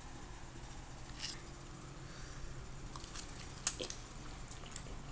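Faint mouth sounds of someone eating a forkful of instant cup noodles: a short wet sound about a second in, then a few small wet clicks of chewing around three to four seconds in.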